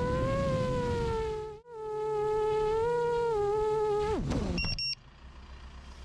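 iFlight Chimera 7 FPV quadcopter's motors and propellers giving a steady whine that wavers slightly in pitch with the throttle, with a brief gap about a second and a half in. Near four seconds the whine falls sharply in pitch and stops as the motors spin down after landing, followed by a few short high beeps.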